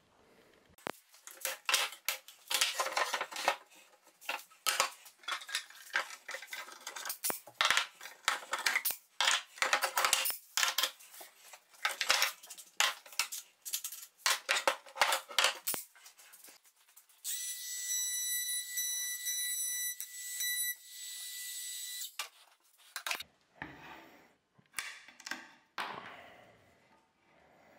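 Metal bar clamps and wooden boards clattering and knocking on a workbench, a quick run of sharp knocks and rattles. After about seventeen seconds a steady high whine runs for about five seconds with a short break. It gives way to quieter rubbing as a wooden panel is handled.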